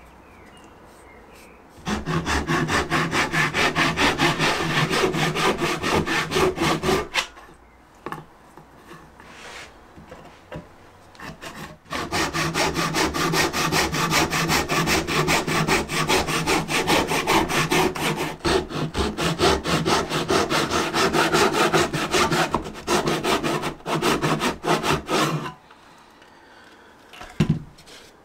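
A woodworking tool working on wood with a fast, even back-and-forth rhythm. It comes in two long runs, about five seconds and then, after a pause with a few scattered strokes, about thirteen seconds. A single knock follows near the end.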